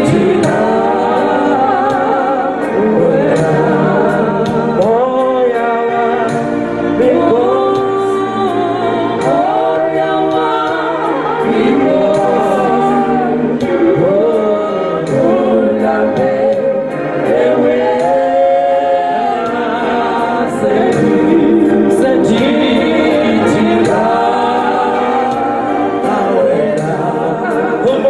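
Gospel choir singing together in harmony, a group of voices carrying a song over a steady beat.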